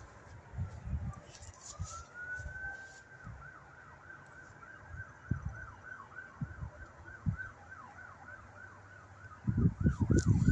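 Faint emergency vehicle siren: a slow wail rising about two seconds in, then switching to a fast yelp of about three or four warbles a second. A loud low rumble comes in near the end.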